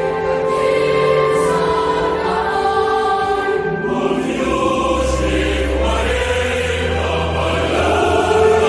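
Choral music: a choir singing slow, held chords over a low bass, with the chords changing a couple of times.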